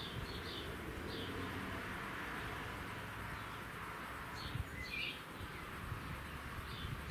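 Small birds chirping in short calls every second or so, a cluster of them about four and a half to five seconds in, over a steady outdoor background hiss.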